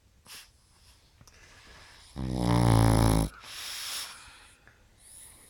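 Pug snoring in its sleep: one loud, low buzzing snore about two seconds in, lasting about a second, between softer breathy breaths.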